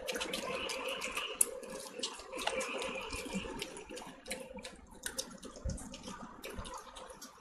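Close-miked eating by hand: fingers squelching through rice and chicken curry and wet chewing and mouth sounds, with many small clicks, over a faint steady hum.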